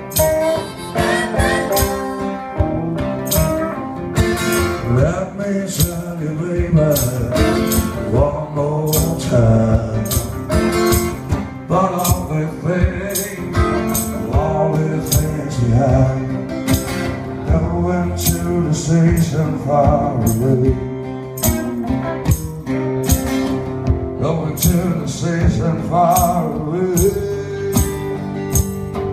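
Live blues-rock: a man singing to a strummed acoustic guitar, over a steady percussive beat.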